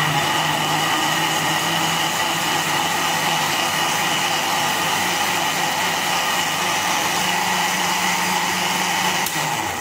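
Electric blender running steadily at full speed, blending banana, strawberries and milk into a smooth milkshake; a steady motor whine that begins to wind down right at the end as it is switched off.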